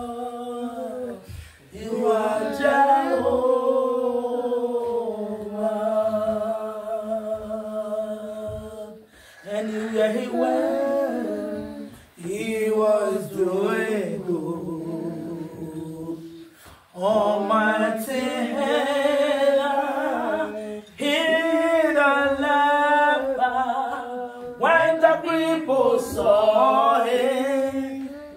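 A woman singing unaccompanied in long, drawn-out phrases of held and sliding notes, with short breath pauses between phrases.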